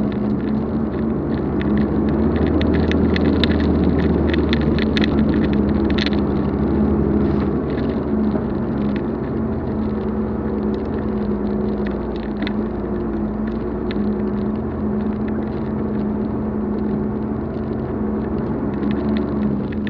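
Expedition vehicle driving on a rough gravel track: steady engine drone and tyre rumble, with a run of sharp clicks and rattles over the first several seconds.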